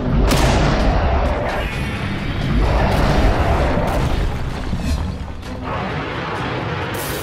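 Animated monster-fight sound effects: heavy booming impacts and crashes layered over background music.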